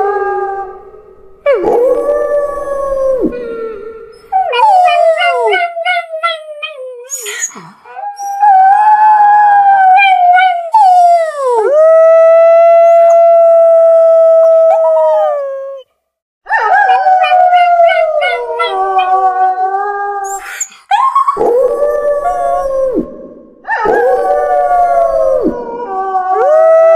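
A series of wolf and dog howls, often several voices overlapping in a chorus, gliding up and down in pitch in separate bouts with short breaks between them. One long, level note of about four seconds is held near the middle.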